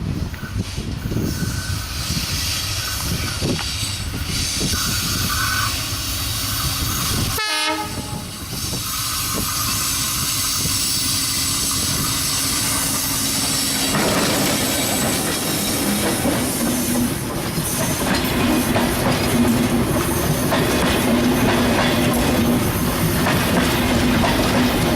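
Diesel-hauled passenger train running past, its wheels clattering rhythmically over the rail joints. The sound grows a little louder in the second half.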